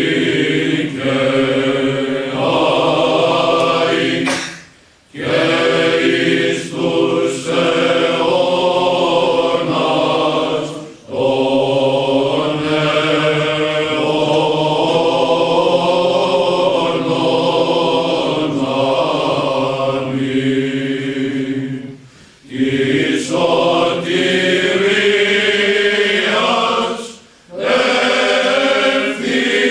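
Male Byzantine choir chanting a Greek Orthodox troparion to the Theotokos, sung in long phrases with brief breaks for breath between them.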